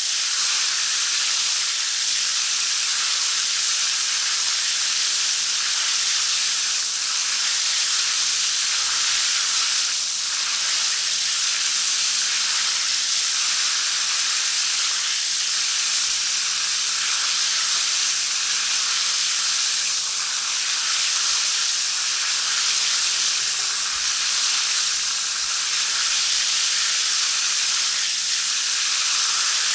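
Shower head spraying water in a steady hiss, with small shifts in the splash now and then.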